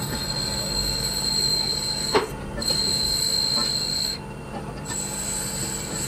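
A steady high-pitched whine that breaks off twice briefly, with a single sharp metal clink about two seconds in as a steel wheel nut is set onto a brake drum hub stud.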